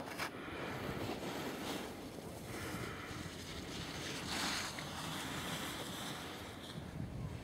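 Steady rushing noise of wind buffeting the microphone while skiing downhill, mixed with the hiss of skis sliding over snow, swelling a little now and then.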